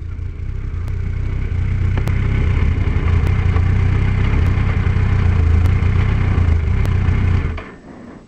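Suzuki Hayabusa's inline-four engine running as the bike is ridden off, growing louder over the first few seconds and then holding steady. The engine sound stops abruptly near the end.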